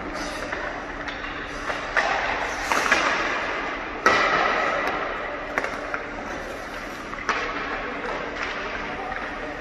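Several sharp knocks of hockey sticks and puck on the ice, the strongest about four seconds in, over the scrape and hiss of skate blades, each knock ringing on in the large rink.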